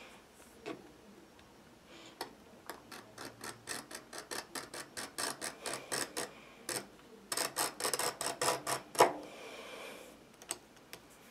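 Knife blade scoring leather along a steel ruler in quick short strokes: a rapid run of scratchy ticks, about four a second, starting about two seconds in. It ends with one louder stroke and a brief scrape.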